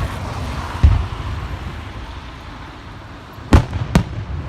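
Fireworks exploding: a sharp bang about a second in, then two bangs in quick succession near the end, over a continuous low rumble of more distant fireworks.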